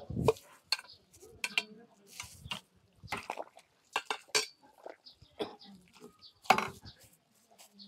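Metal serving utensils, a steel ladle and chopsticks, clinking and scraping against a stainless steel bowl and a large wok as stew is ladled out: irregular clinks, the loudest just after the start and about six and a half seconds in.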